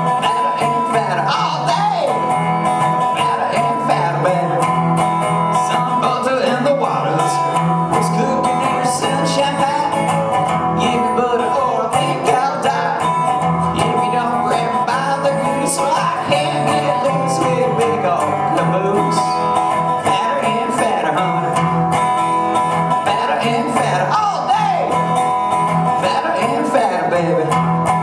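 A resonator guitar played in a solo live performance.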